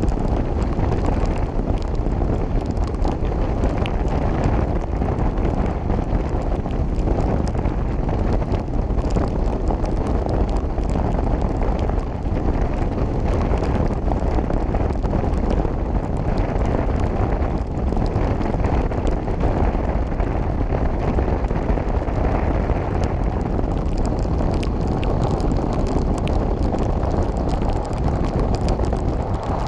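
Steady wind rush buffeting the microphone of a camera on a motorcycle at highway speed, with the motorcycle's running mixed in underneath.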